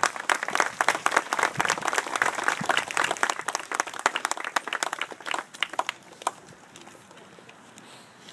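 A small group of people applauding, the clapping thinning out and stopping about six seconds in.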